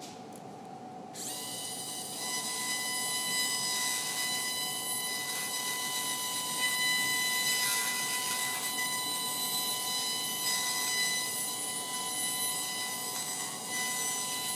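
High-speed surgical drill spinning a 5 mm burr, starting about a second in and running as a steady high whine while it grinds away nasal bone.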